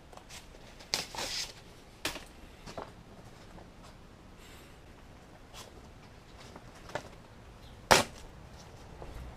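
A few scattered clicks and knocks from objects being handled, with a short rustle about a second in. The loudest is a single sharp click near the end.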